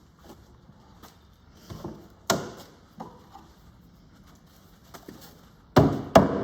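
Wooden sections knocking together as they are pushed onto domino joints: a few scattered knocks, the two loudest in quick succession near the end.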